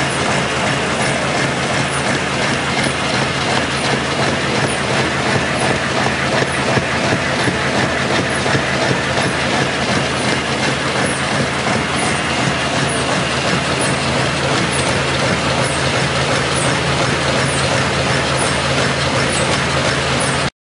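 Graphitec Pratica paper-handling machine running: a steady mechanical clatter with a regular ticking as its mechanism cycles. It cuts off abruptly near the end.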